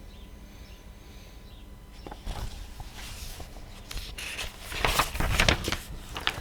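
Irregular rustling and knocking, as of handling or movement, starting about two seconds in and getting busier toward the end.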